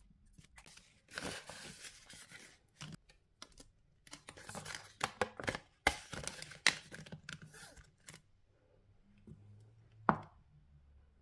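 Paper handling close up: banknotes and paper savings-challenge sheets rustled, scratched and slid into a cash binder's envelope, in three bouts of a second or so, with one sharp click about ten seconds in.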